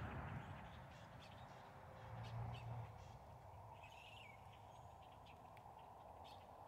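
Faint outdoor ambience: a steady distant hum, with a short wavering bird call about four seconds in.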